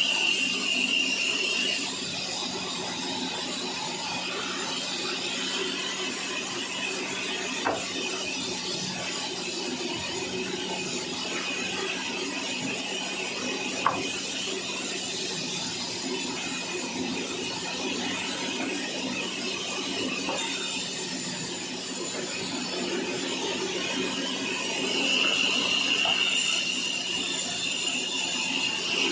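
Sawmill machinery running with a steady hum and mechanical clatter. A high whine comes in briefly at the start and again near the end, and there are two sharp knocks in the middle.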